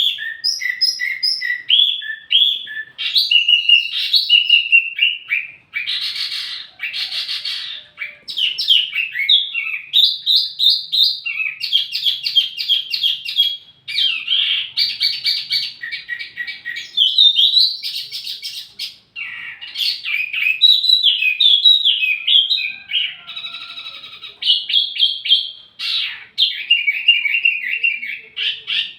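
Wambi mini songbird singing a long, fast, varied song of high chirps, trills and quick whistled phrases with only brief gaps. A song of this kind is used as a lure and tutoring recording for tledekan birds.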